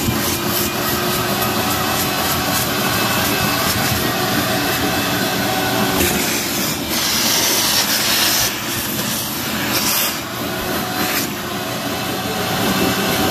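Wet/dry shop vac running steadily while its hose nozzle sucks vomit up off a carpet, the hissing suction surging and easing around the middle as the nozzle is worked over the pile.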